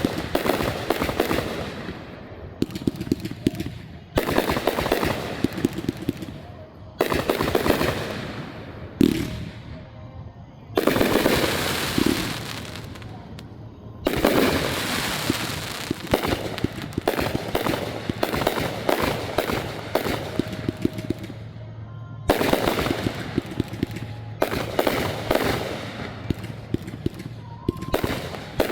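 Fireworks display going off in volleys. Each volley is a dense run of sharp bangs and crackling that starts suddenly, at about 4, 7, 11, 14 and 22 seconds in, then trails off.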